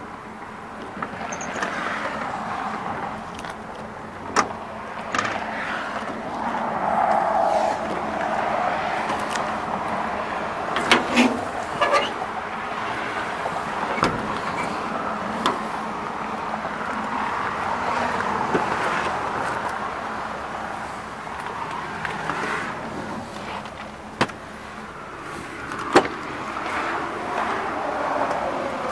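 Sharp clicks and clunks of a pickup truck's tool-compartment latches and doors being worked by hand, over a rushing background noise that swells and fades.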